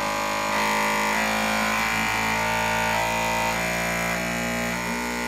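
Bambu Lab X1 Carbon 3D printer running its vibration-compensation (input shaping) calibration: its stepper motors shake the print head at one set frequency after another. The result is a chain of steady, buzzing electronic tones that jump to a new pitch every fraction of a second, like a synthesizer.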